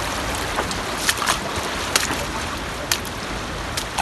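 Shallow, fast-flowing stream rushing steadily around someone wading through it, with a few short, sharp clicks through it.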